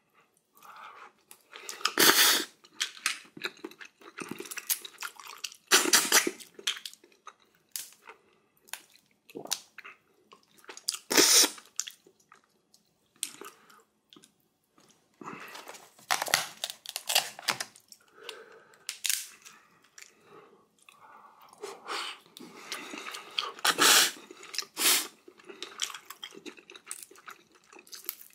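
Close-miked eating: chewing and crunching of ramen with crab and kimchi, broken by loud short noisy bursts every few seconds.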